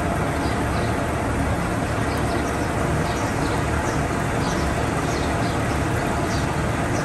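Steady mechanical drone of dairy-barn machinery: ventilation fans and an electric rotating cow brush running, with faint short high chirps scattered throughout.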